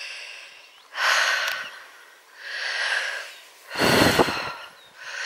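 A person breathing hard while climbing a stone stile: a run of loud, separate breaths about a second apart. The breath about four seconds in has a low rumble with it.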